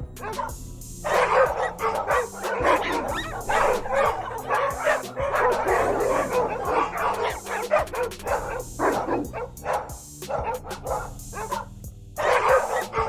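Dogs fighting: a dense run of overlapping barks and fight noises that eases to scattered bursts after the middle and picks up again near the end.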